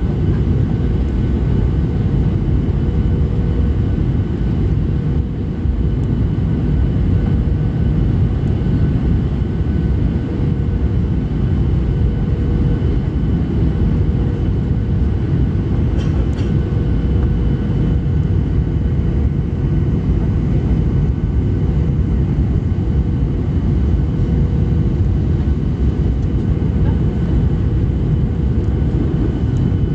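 Steady cabin noise of a Boeing 737 descending on approach, heard from a seat beside the wing and engine: a deep, even rumble of the engines and rushing air, with faint steady whining tones over it.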